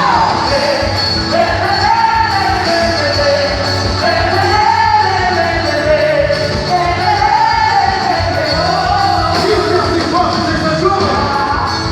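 Loud music with a singing voice carrying a melody over a steady beat.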